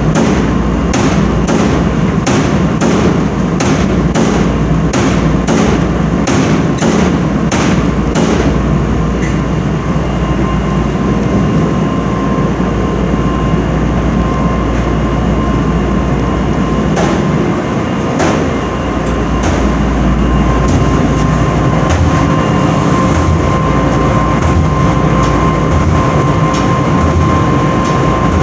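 Commercial laundromat tumble dryer running loudly: a steady rumble with a sharp knock about twice a second for the first eight seconds or so, after which the knocking stops and a thin steady whine comes in and grows stronger toward the end.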